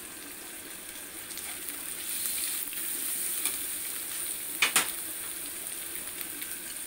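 Sliced onions, green chillies and chilli powder sizzling in hot oil in a frying pan as a spatula stirs them, with a couple of sharp knocks a little past halfway.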